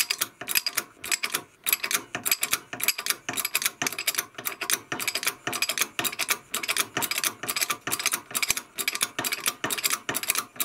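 Rapid, steady clicking, several clicks a second, from a bushing press tool being worked as a new rear subframe bushing is pressed into its mounting.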